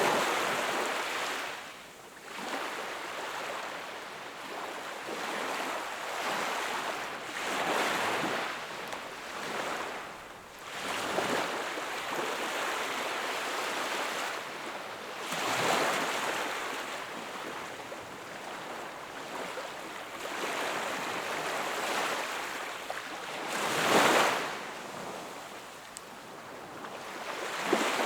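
Sea waves breaking and washing up a shore: a steady hiss of surf that swells every few seconds, with the strongest wave breaking a few seconds before the end.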